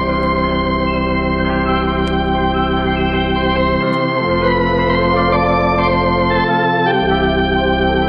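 Organ music playing slow, sustained chords, the bass note shifting about four seconds in and again near the end.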